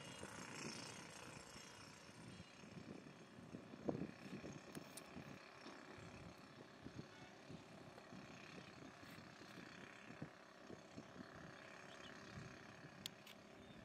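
Near silence: faint outdoor background with soft, uneven low rumbling and a few small knocks, the loudest about four seconds in.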